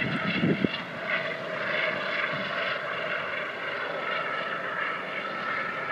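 Eurocopter AS 365 N2 Dauphin helicopter in flight: its twin Turbomeca Arriel turboshafts give a steady high-pitched whine. A few brief low rumbles of wind on the microphone come in the first second.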